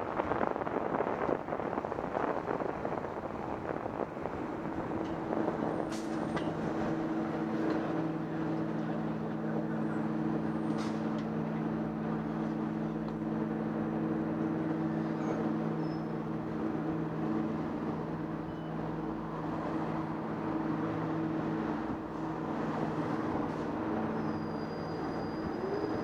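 City street traffic heard from a bicycle: a rush of wind and road noise for the first few seconds, then a steady low hum from a nearby vehicle that holds without changing pitch for the rest, with a few faint clicks.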